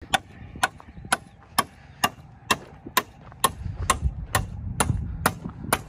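Hammer striking a wooden pallet frame in an even run of sharp blows, about two a second.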